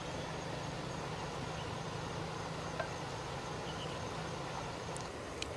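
Steady outdoor background noise with a constant low hum, broken by a couple of faint small clicks.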